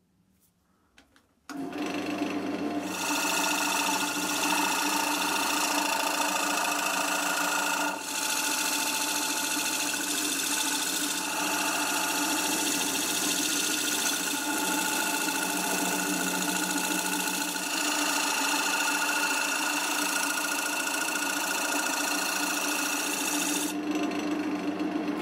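Wood lathe spinning an oak blank, its motor starting about a second and a half in and running steadily. A turning tool cuts the spinning wood with a hiss over the motor's hum for most of the time, until the cutting stops near the end.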